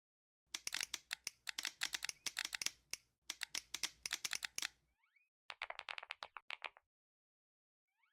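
Rapid sharp clicking in three runs: two long runs of quick clicks over the first few seconds, then a shorter, duller run of clicks about two-thirds of the way in.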